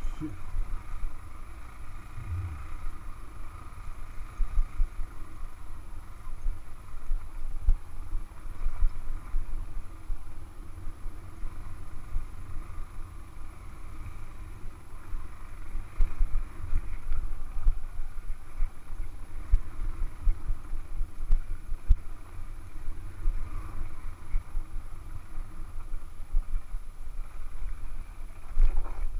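Dual-sport motorcycle ridden over a rough, rocky dirt trail: the engine runs under a constant low, uneven rumble full of jolts from the bumps and wind on the camera.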